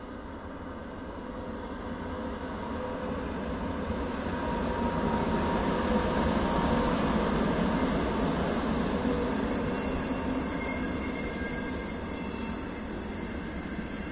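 CFL Class 3000 electric locomotive no. 3008 hauling double-deck passenger coaches passes close by: the rumble of the locomotive and the wheels on the rails builds to its loudest about halfway through, then eases as the coaches roll past.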